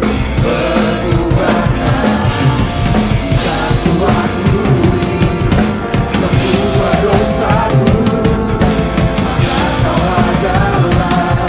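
A live worship band with singers performing an Indonesian-language worship song, with a Sakae Almighty acoustic drum kit played throughout: snare and tom hits and cymbals under the vocals.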